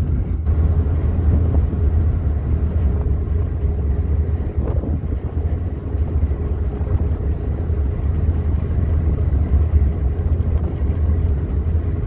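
A ferry's engines running: a steady low rumble with a constant hum.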